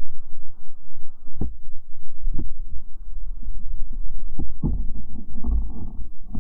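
Muffled underwater sound heard through a waterproof camera housing: a steady low rumble of water moving with a few sharp clicks and knocks.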